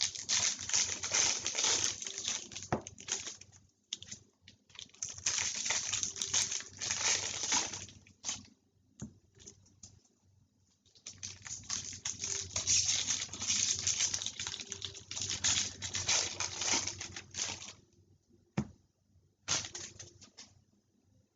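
A stack of 2019 Bowman baseball cards being flipped and slid through by hand: a dry rustling in several long stretches with short pauses between them, and a couple of sharp taps.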